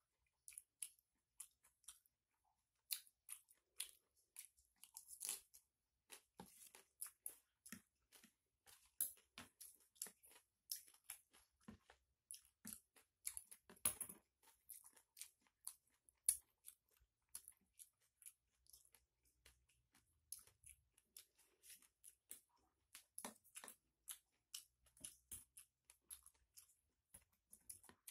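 Faint close-up chewing and crunching of a mouthful of pecel with crispy keripik chips: a dense run of quick crunchy clicks, several a second.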